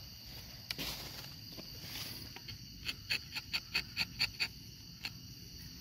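A rubber-tapping knife shaving a thin strip of bark along the tapping cut of a rubber tree: a quick run of short scraping clicks, about six a second, starting about halfway in, over a steady high insect drone.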